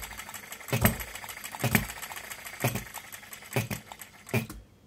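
Miniature Baker Monitor ball-top hit-and-miss petrol engine firing with a sharp pop just under once a second, with mechanical clatter between the firings, then dying out about four and a half seconds in. It is running unevenly, which the owner puts down to the carburettor needle not yet being set at its sweet spot.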